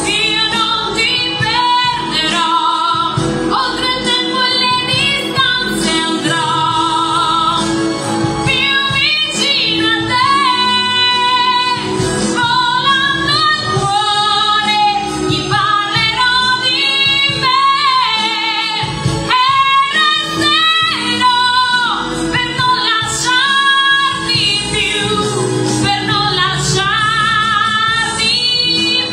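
A woman singing an Italian pop ballad live into a handheld microphone over a recorded backing track, holding long notes with a wide vibrato.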